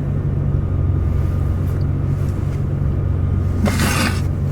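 Steady low drone of a moving car heard from inside the cabin: engine and road noise. A short hiss comes near the end.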